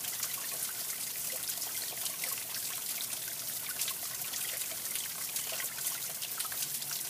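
Shallow stream water trickling over rocks, a steady run of many small splashes and drips.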